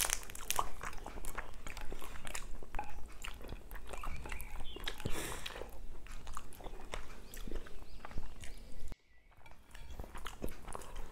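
Close-miked chewing and wet smacking of someone eating fish curry and rice with their fingers, with many small irregular clicks. The sound drops off abruptly about nine seconds in, then softer handling sounds resume.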